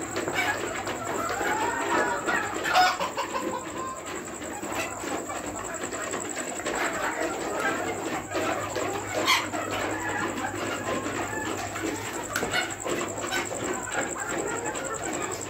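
A flock of chickens clucking and calling over one another without a break, with a louder call about three seconds in and another around nine seconds.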